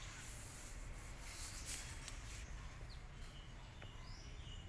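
Faint birds chirping in short, high calls a few times, over a low steady rumble of background noise.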